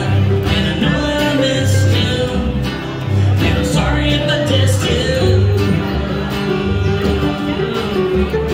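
Bluegrass band playing live: plucked upright bass notes under strummed acoustic guitar and mandolin.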